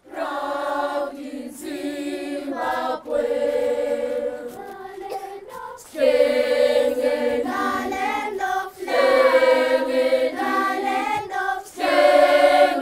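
A choir of voices singing together in phrases of long, held notes, with short breaks between phrases.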